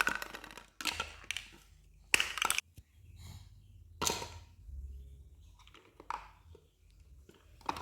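Toy pieces clacking and knocking together as a tower is built: a handful of short, sharp clacks spread over several seconds, the loudest about two seconds in.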